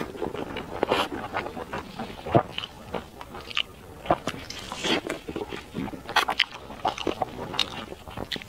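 Wet sucking, slurping and lip-smacking as a person gnaws and sucks marrow and sauce from a braised beef bone, in irregular short bursts with small clicks.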